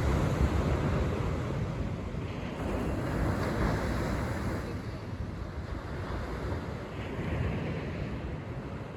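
Outdoor rushing noise of wind, buffeting the microphone, swelling and easing every few seconds.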